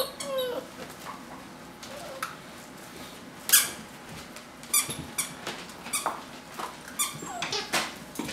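Young Vizsla puppies playing and play-fighting, giving short high-pitched squeaks and a few falling whines and yelps. The loudest squeak comes about three and a half seconds in.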